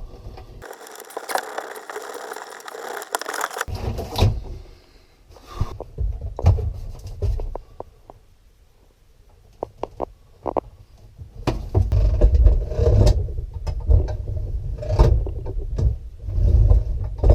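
Hand work on metal boat steering hardware: scattered scrapes, clicks and rattles, with a steady hiss at the start and heavy low rumbling near the end.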